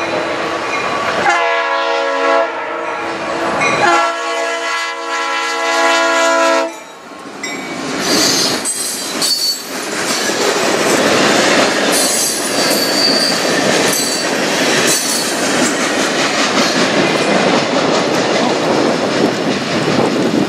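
Diesel locomotive air horn sounding two long, multi-note blasts over the first seven seconds. Then freight cars roll past with steady wheel-on-rail noise, clicks over the rail joints and a few brief high-pitched wheel squeals.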